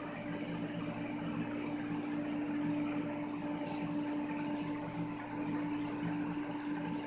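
Amtrak Acela Express trainset standing still, its onboard equipment giving a steady hum: one constant mid-pitched tone with fainter higher ones over a soft hiss.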